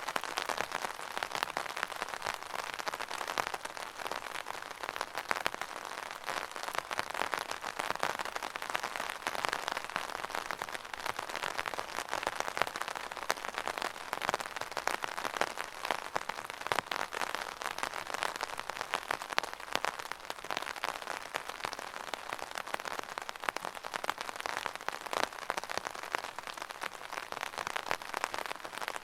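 Steady rain pattering on an umbrella canopy: a dense, even patter of drops.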